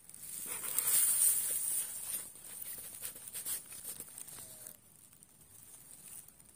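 Rustling and crackling of dry grass and reeds, with handling noise, as a hooked fish is lifted from the water and swung in through the bank vegetation. Loudest about a second in, then a run of quick crackles that dies down near five seconds in.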